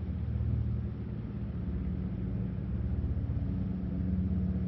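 Boat engine running steadily at low speed: a constant low, pulsing hum.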